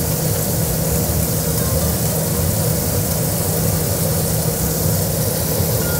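Kitchen range hood fan running steadily, a low hum under a broad hiss, with flank steak searing in a hot skillet.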